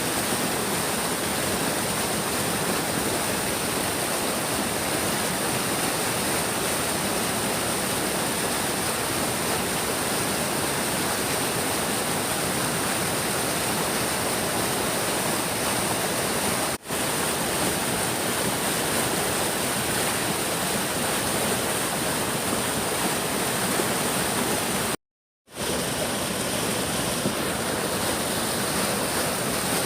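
Large stream rushing steadily over rocks, a continuous even roar of running water. The sound drops out briefly about 17 seconds in, and cuts to silence for half a second about 25 seconds in.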